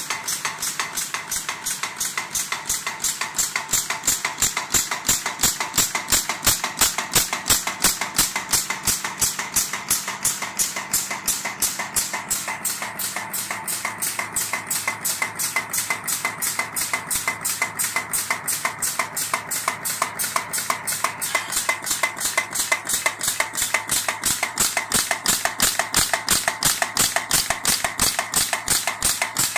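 Headless pin making machine running, its cutting head chopping a strip of glued wire into pins with sharp metallic clicks at an even rate of about four strokes a second.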